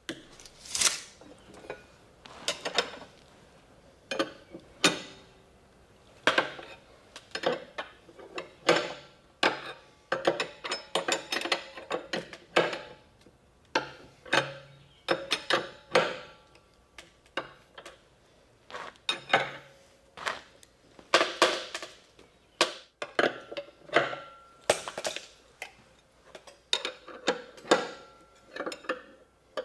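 Ratchet wrench clicking in short runs with pauses, cranking nuts down on threaded rods that clamp a split wooden anvil stand.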